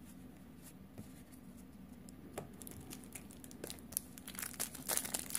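Foil wrapper of a Magic: The Gathering booster pack crinkling as it is handled, growing busier over the last two or three seconds, after a few light clicks at the start.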